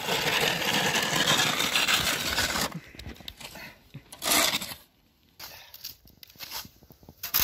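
Wide metal snow shovel scraping along snow-covered pavement as it pushes snow: one long scrape of about two and a half seconds, a shorter scrape about four seconds in, and fainter scuffs after.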